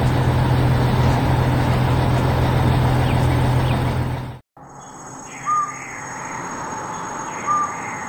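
Heavy truck engine running steadily, then cut off abruptly about four seconds in. Quieter outdoor ambience follows, with two short bird chirps.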